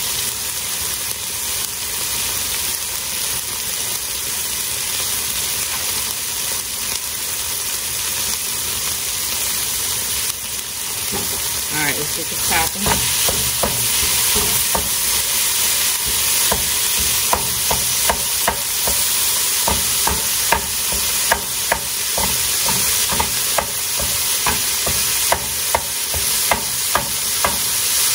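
Ground beef patties sizzling in a frying pan. About eleven seconds in, a wooden spoon starts chopping the meat up, knocking against the pan about twice a second.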